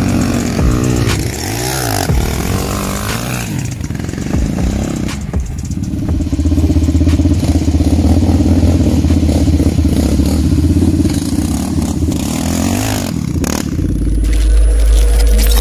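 Sport quad (ATV) engines revving and passing by, the sound changing abruptly a couple of times.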